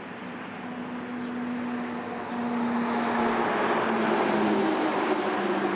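A motor vehicle's engine hum with a steady low tone, growing louder as it draws closer.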